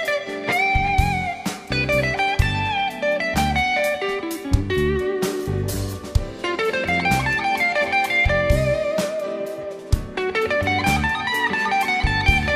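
Live blues band playing an instrumental passage: a lead electric guitar plays a melodic line with bent notes over drums and keyboard.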